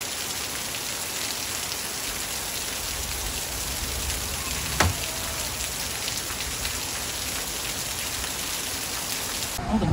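Torrential rain pouring down, a dense steady hiss of heavy rainfall, with one sharp knock about five seconds in.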